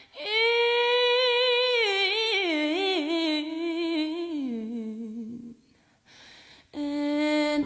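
A single voice humming or singing long wordless held notes with wavering runs, stepping down in pitch; it breaks off about two thirds of the way through and a new held note starts near the end.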